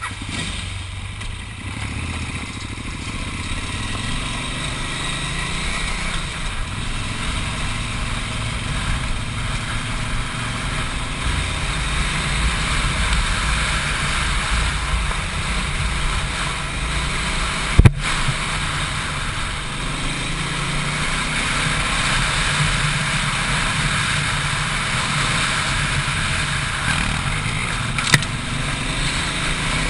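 Adventure motorcycle engine running along a gravel trail, picked up on the bike's own camera, its revs slowly rising and falling under a steady hiss of wind and tyres. Two sharp knocks stand out, one a little past halfway and one near the end.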